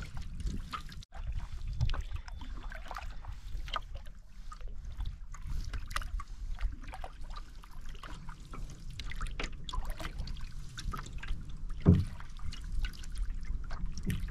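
Canoe paddling: paddle strokes through the water with trickling drips off the blade, and one low thump near the end.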